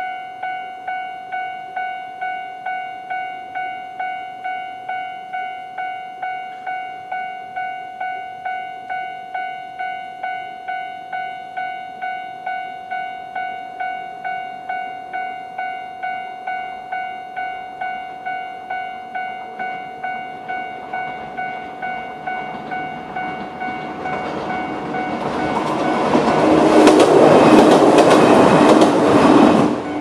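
Japanese level-crossing warning bell ringing steadily at about two strikes a second. From about two-thirds of the way in, a Toyama Chihō Railway 10030-series electric train is heard approaching. It passes loudly over the last few seconds, drowning out the bell, and its noise drops off sharply at the very end.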